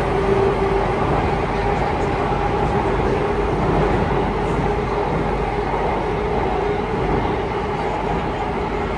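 Singapore MRT train running at steady speed, heard from inside the carriage: an even rumble of wheels and track with a steady motor whine over it.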